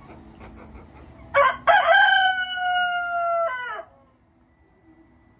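Rooster crowing once, loud: a short opening note about a second and a half in, then a long held note that drops away at the end.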